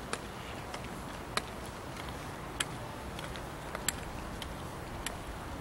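Steady outdoor background hiss, probably wind on the microphone, with a light, sharp tick about every second and a quarter.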